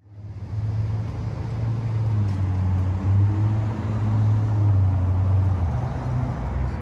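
An engine running steadily at an even speed, fading in over the first half second.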